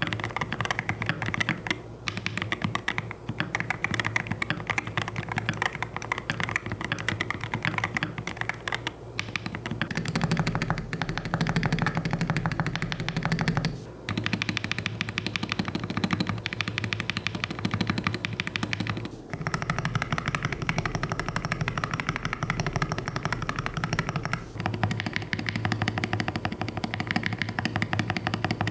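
Fast, continuous typing on an IYX MU68 magnetic-switch keyboard: a dense run of keystroke clacks broken by a few short pauses.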